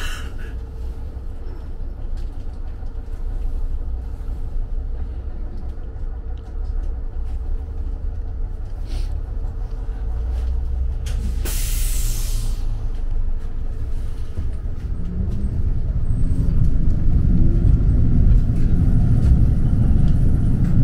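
Electric tram heard from inside the passenger cabin: a steady low running rumble with a faint steady hum, and a short loud hiss a little past halfway. From about three-quarters of the way in, the traction motors whine upward in pitch and the rumble grows louder as the tram picks up speed.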